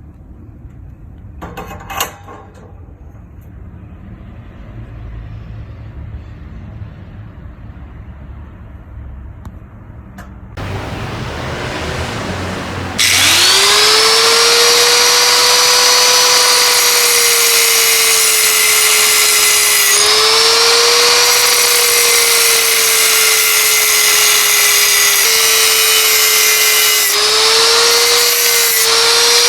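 Electric power tool spinning up about a third of the way in, then running with a loud steady high whine that dips briefly several times as it bears on the work, while the metal fire stand is being modified. Before it, faint handling noise with a single sharp click.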